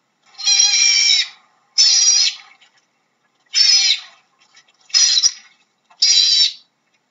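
Otter giving a series of high-pitched calls, five in a row about a second apart, the first the longest.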